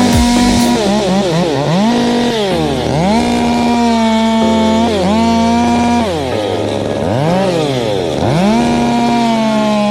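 Two-stroke chainsaw running at high revs, the engine pitch dropping and climbing back up several times.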